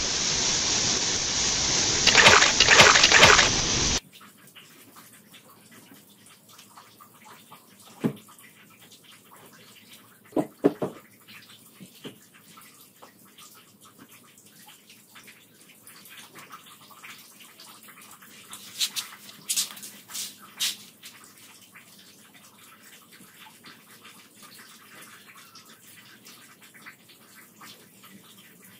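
Loud rushing, swirling water of a whirlpool, cutting off abruptly about four seconds in. After that a quiet room, with a few soft knocks and a brief patch of rustling.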